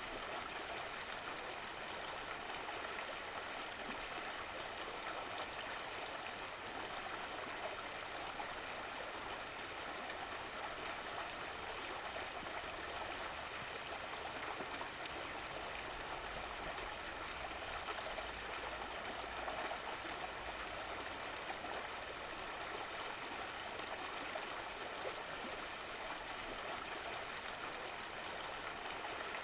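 Running water of a stream, a steady flowing and trickling rush with no break.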